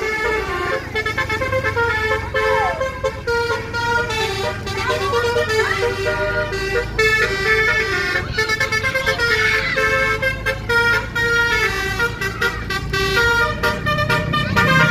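Bus 'basuri' musical horn playing a tune in stepped, steady notes over the low rumble of moving traffic.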